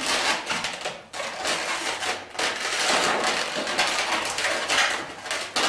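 Inflated latex 260 modelling balloons rubbing and squeaking against one another as a cluster of balloon bubbles is squeezed and arranged by hand: a continuous run of short rubbing noises.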